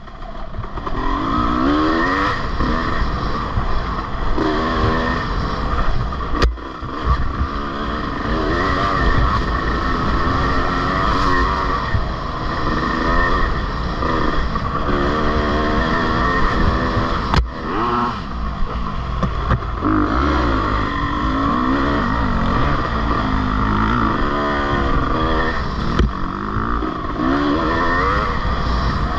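Off-road racing motorcycle engine revving up and dropping back again and again under hard riding, over a steady rush of wind and riding noise. Two sharp knocks stand out, about six and seventeen seconds in.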